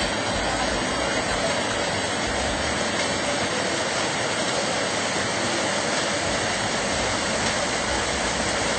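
Steady rushing water, an even hiss with no rhythm or pitch.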